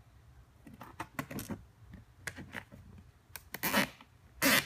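A nylon zip tie being fed through drilled holes in a corrugated plastic (coroplast) sheet and pulled, giving several short plastic scrapes and rustles that grow louder toward the end.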